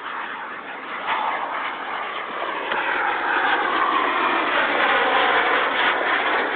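Model airplane flying overhead: its motor sound grows louder over the first few seconds and slides down in pitch as it passes.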